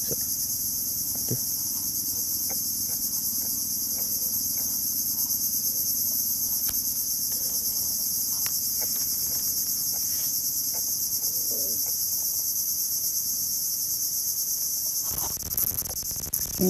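Chorus of insects in the mangrove trees, a steady high-pitched drone that does not let up.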